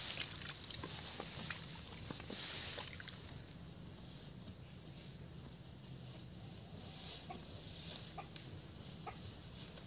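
Cattle grazing, cropping grass with irregular short tearing clicks. A steady high thin whine runs underneath, and a few short bird calls come near the end.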